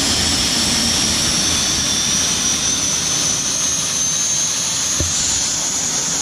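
Jet engine running, a loud steady rush of exhaust with a high turbine whine that climbs slowly in pitch as the engine spools up.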